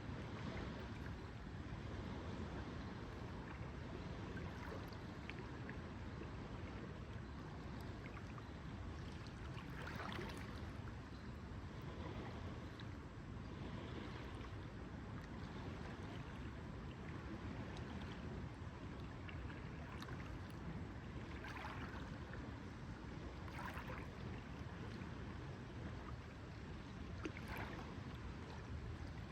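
Lake water lapping steadily, with a few brief, brighter splashes standing out now and then.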